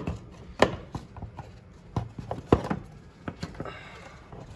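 A few scattered knocks and clicks as a loosened box in a car engine bay is handled and lifted out. The loudest come about half a second in and again about two and a half seconds in.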